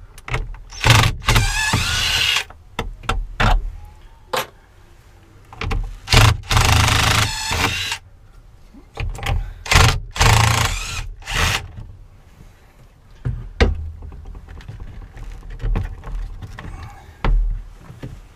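Cordless screwdriver run in short bursts of about a second or two, backing out the screws of a vehicle skylight's frame, with knocks from handling the frame and a low rumble underneath.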